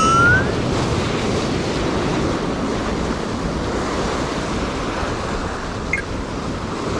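Sea surf washing against a rocky shore, a steady rushing wash with wind buffeting the microphone. A brief rising chirp sounds right at the start.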